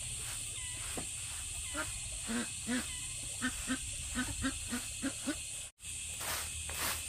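Ducks quacking in many short repeated calls. About three-quarters of the way through the sound cuts, and a broom of dried leaves scrapes over a dirt path in quick scratchy strokes.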